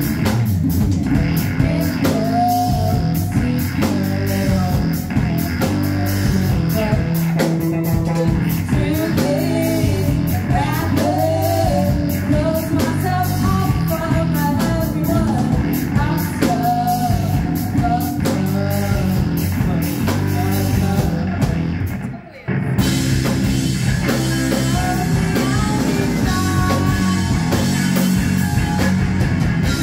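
Live rock band playing: a woman singing over electric guitar, bass guitar, drum kit and saxophone. The music drops out for a moment about three-quarters of the way through, then comes back in.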